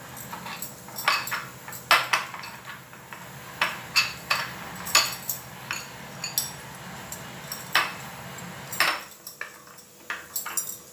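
Metal spoon clinking and scraping against a cut-glass bowl while stirring semolina and flour with a little water into a stiff dough, in irregular light taps. The clinks thin out near the end as the mixing turns to kneading by hand.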